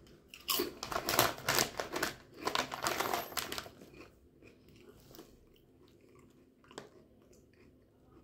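Crunching of thick-cut potato chips being bitten and chewed: a run of crisp crunches for about three seconds, fading to faint chewing ticks after about four seconds.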